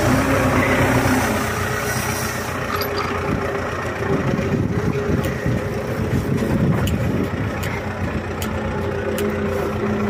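Wheeled tractor's diesel engine running steadily as it drives along, its rear-mounted rotary brush sweeping snow off the pavement in a steady rushing noise.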